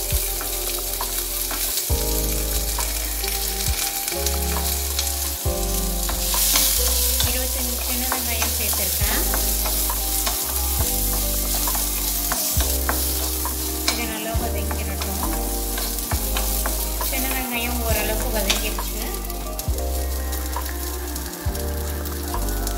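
Small onions (shallots) sizzling and frying in hot oil with chana dal and urad dal in a metal kadai, stirred now and then with a wooden spatula that scrapes and knocks against the pan.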